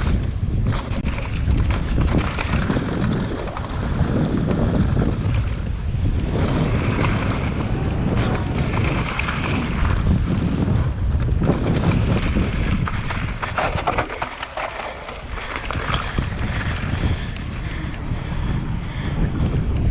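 Wind buffeting the microphone of a mountain-biker's action camera during a downhill run, with tyres on dirt and the bike rattling over bumps. The rush dips briefly a little past two-thirds through.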